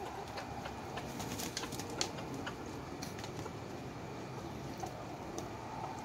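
A flock of backyard chickens feeding, with a low continuous murmur of soft clucking and cooing. Over it comes a scatter of sharp taps, thickest in the first couple of seconds, from beaks pecking kale off wooden boards.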